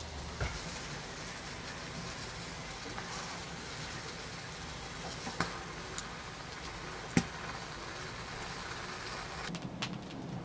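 Yellow bell pepper sizzling as it roasts directly on glowing charcoal embers: a steady hiss with a few sharp crackling pops from the coals, the loudest about seven seconds in. Near the end, a quick run of light clicks.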